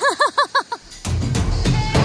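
A man's short laugh, four quick ha's, then background music with drum hits starts about a second in.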